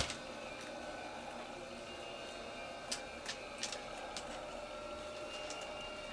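Wood-pellet cat litter clicking and rattling now and then as kittens scramble and dig in a plastic litter box, with a handful of sharp clicks in the middle. A steady hum runs underneath.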